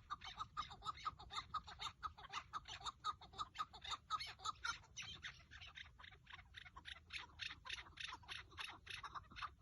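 Chukar partridge calling: a long, rapid run of repeated 'chuck' notes, about five a second, easing a little in the middle before picking up again.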